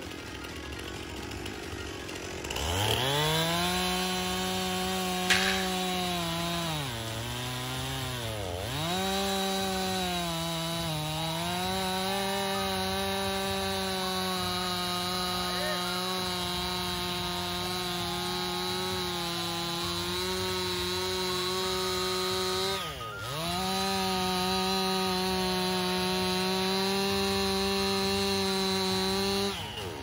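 STIHL two-stroke chainsaw revved up from a low idle a few seconds in and held at full throttle while cutting deep kerfs into an upright log, spraying sawdust. Its pitch sags a few times early on as the chain bites into the wood. The throttle is let off and opened again about three-quarters of the way through, then let off just before the end.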